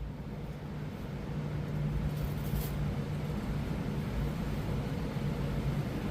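Electric target carrier motor running along its track with a steady low hum and rumble, growing louder over the first couple of seconds as the target comes back.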